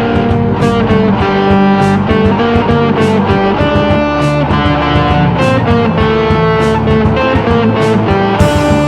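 Background music: an instrumental piece led by guitar, with sustained notes over a steady beat.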